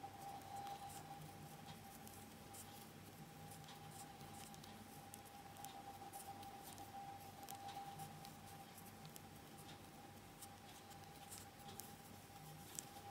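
Faint scattered ticks and rustles of a fine 1.3 mm metal crochet hook pulling mercerized cotton thread through stitches by hand, over a steady faint hum.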